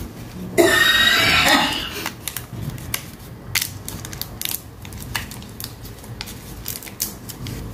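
Plastic packaging of a nasal antigen self-test kit being handled. A loud crinkling burst lasts about a second near the start, followed by scattered light clicks and taps of small plastic parts on the table.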